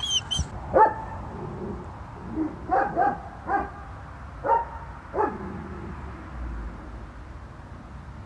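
Dog barking, about six short barks over the first five seconds, then stopping.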